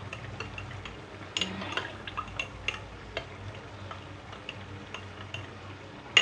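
Metal teaspoon stirring poppy seed paste into milk in a glass tumbler, clinking irregularly against the glass, with a louder clink at the very end.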